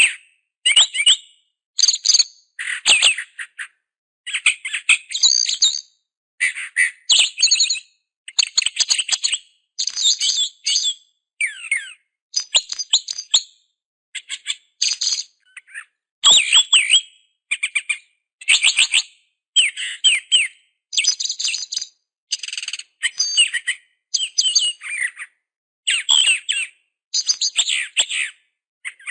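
Bird chirping and twittering in short, quick phrases with fast up-and-down sweeps in pitch, about one phrase a second, each followed by a brief silence.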